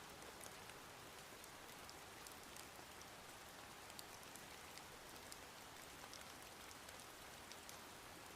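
Faint, steady rain, an even hiss with scattered sharp drop ticks.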